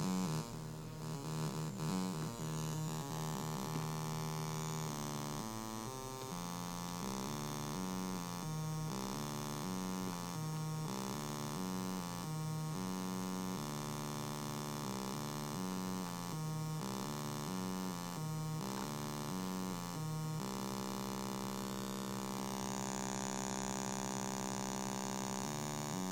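Arduino-based Auduino granular synthesizer putting out a buzzy, lo-fi drone whose pitch hops between two notes in a quick repeating pattern, the notes set by MIDI from a drum machine. About three-quarters of the way through it settles on one held note, and soon after, the upper part of its tone shifts.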